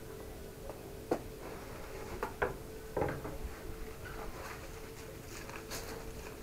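Indoor-outdoor carpet being unrolled and smoothed flat on a wooden table: a few sharp knocks in the first three seconds, then soft scuffing and rustling of the carpet under the hands, over a faint steady hum.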